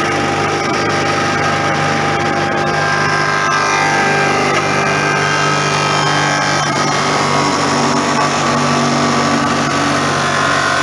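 Wood sawdust machine running, its rotating blades cutting a wooden log fed in by the infeed conveyor down to sawdust. A steady loud mechanical noise with a low hum and higher tones that shift slightly in pitch.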